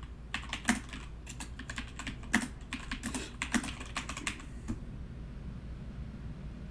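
Typing on a computer keyboard: a quick, irregular run of key clicks that lasts about four seconds and then stops.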